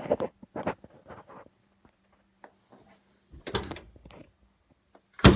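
A few faint clicks and knocks over a low hum, a short cluster of knocks about three and a half seconds in, then a single sharp, loud thump near the end.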